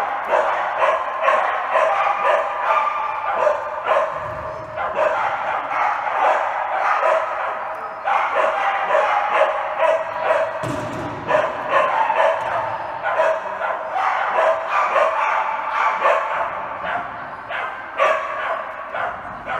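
Dog barking in rapid, repeated barks, with brief lulls, with people talking in the background.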